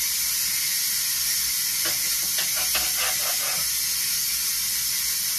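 Pressure cooker venting steam in a steady, loud hiss, the pressure being released from a finished batch of lima beans.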